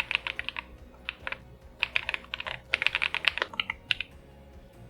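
Keys of an MCHOSE G98 Pro gasket-mounted mechanical keyboard with pre-lubed switches being typed in quick runs of clicks, with short pauses between runs, tailing off about four seconds in.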